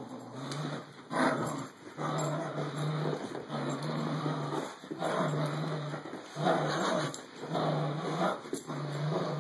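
Dogs play-growling while tugging on a rope toy between a boxer and a black-and-white puppy: low growls in bouts of about a second, repeated with short breaks.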